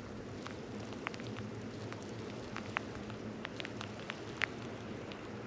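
Snow starting to fall, heard through a vehicle's partly opened door: a steady soft hiss with scattered light ticks of flakes or pellets striking.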